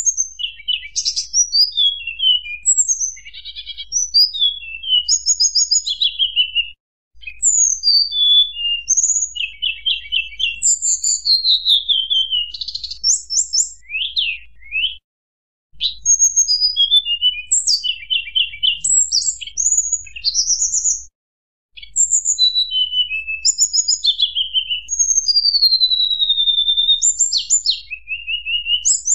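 Tledekan gunung (a small Asian flycatcher) singing a long, varied song of clear high whistles, down-slurred notes and rapid trills: the flute-like 'nyuling' song used as a lure call. The recording drops out briefly three times, about 7, 15 and 21 seconds in.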